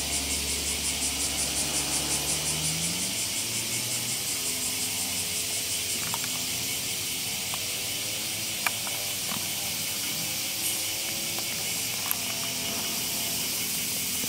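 A loud cicada chorus: a steady high hiss that pulses rapidly at first. A low vehicle engine hum underneath rises in pitch and fades about three seconds in, then a fainter engine drone wavers up and down.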